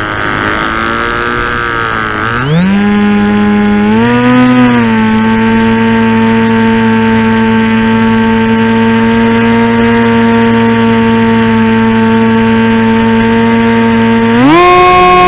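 Radio-controlled model airplane's motor and propeller, heard from on board. It is throttled back at first with a rush of air, then climbs in pitch about two seconds in and steps up again around four seconds. It then holds a steady pitch and rises once more near the end.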